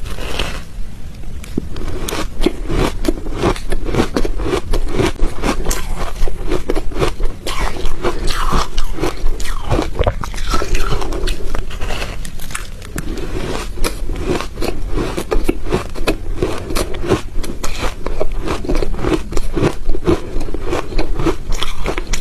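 Ice being bitten and chewed close to the microphone: a run of dense, rapid crunches and crackles that keeps going with only short let-ups.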